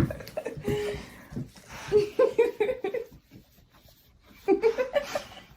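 A person laughing in three bursts of short, quick ha-ha pulses.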